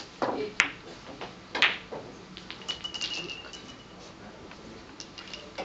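Billiard balls clicking on a keglebillard table: two sharp knocks of cue and balls about half a second and a second and a half in, followed by a run of lighter clicks as the balls collide and roll.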